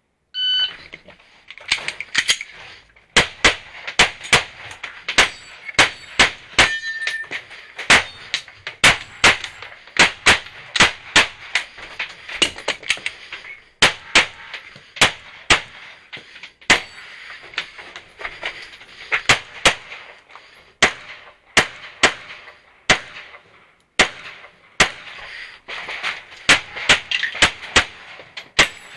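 A competition shot-timer beep, then a USPSA stage of rapid pistol fire from a red-dot handgun. The shots come in quick pairs and strings with short gaps between, fired from inside a school bus through its windows.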